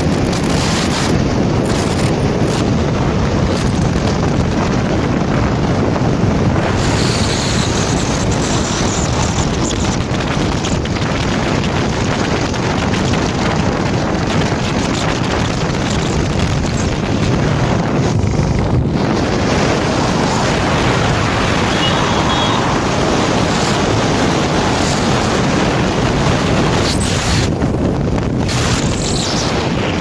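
Steady rush of wind across the microphone of a camera on a moving motorcycle, with the motorcycle's engine and road noise underneath.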